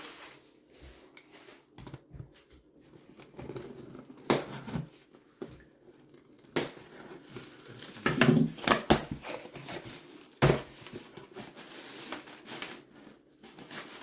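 Cardboard box and packaging handled and opened by hand: irregular crinkling, rustling and tearing, broken by sharp clicks and knocks, the loudest about four seconds in and again around eight to ten and a half seconds in.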